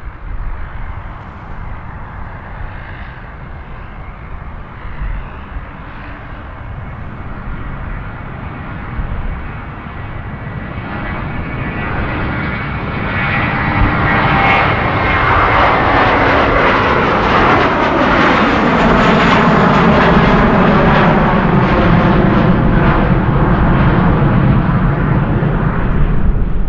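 Airbus A321-200's twin jet engines at takeoff thrust, growing louder over the first half as the airliner accelerates toward the listener. It turns into a loud, steady jet noise, with whining tones that fall in pitch as it goes past.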